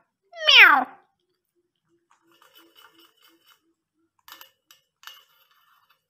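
Alexandrine parakeet imitating a cat's meow: one loud call that falls in pitch and ends about a second in, then a few faint clicks.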